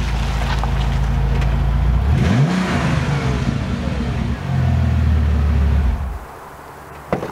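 Bentley's 6-litre twin-turbo W12 running as the car rolls forward and stops, with a short rise in revs about two seconds in. The engine cuts off about six seconds in, and a single click follows near the end.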